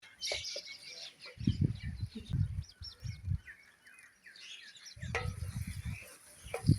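Small birds chirping repeatedly, with two stretches of low rumbling noise, like wind or handling on the microphone, and a sharp knock near the end.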